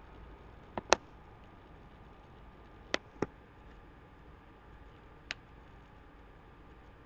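Computer mouse clicking: a pair of sharp clicks about a second in, another pair near three seconds, and a single click after five seconds, over a faint steady hiss and hum.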